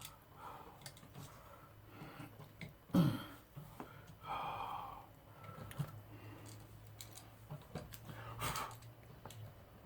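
Scattered clicks, knocks and scraping as an electrical outlet and its wires are pushed into the wall box by hand, with a louder knock about three seconds in and a short rasp about a second later.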